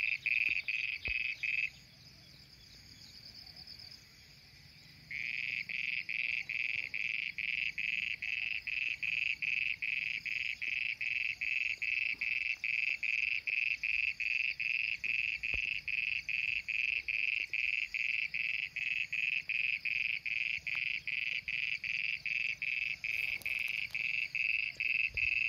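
Frogs calling from rain-flooded fields: a continuous high pulsing call, a few pulses a second. It breaks off about two seconds in, leaving only a fainter higher trill, and starts up again about five seconds in.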